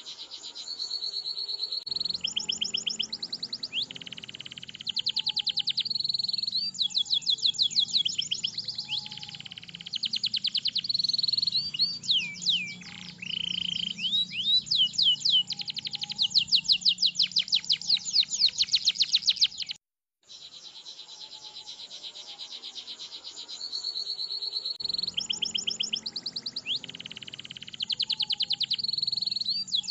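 Domestic canary singing long, high-pitched rolling trills strung with fast repeated chirps and short whistled glides. The song breaks off for an instant about two-thirds through, then resumes.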